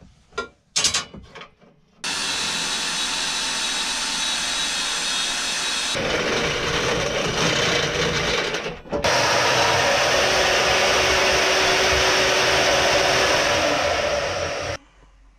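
Power tools working 3/16-inch steel flat stock in three separate steady runs that start and stop abruptly, after a few light clicks of handling the metal. The last and loudest run is a vertical bandsaw cutting the steel.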